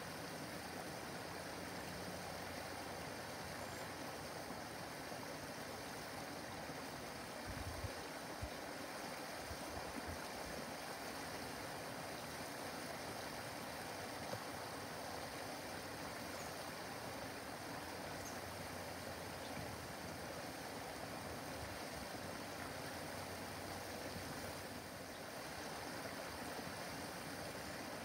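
Small backyard waterfall running steadily, water splashing down a short cascade of rocks into a pond.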